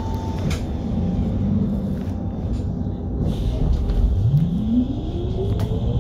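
Hess Swisstrolley 4 trolleybus running on its electric traction motor over a low rumble. About four seconds in, the motor's whine rises steadily in pitch as it pulls away and accelerates.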